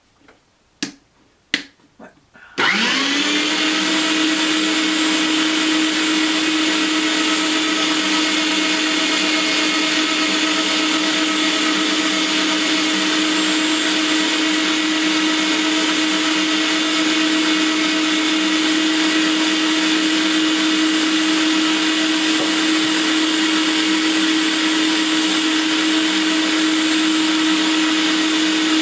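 A few sharp clicks, then the HOMGEEK electric meat grinder's motor starts about two and a half seconds in, spins up briefly and settles into a loud, steady whine as it grinds raw chicken through the medium plate.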